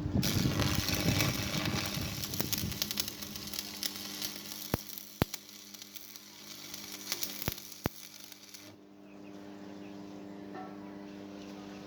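Electric arc welding crackling steadily as a bead is laid, cutting off about nine seconds in when the arc is broken. A steady low electrical hum runs underneath and carries on after the arc stops.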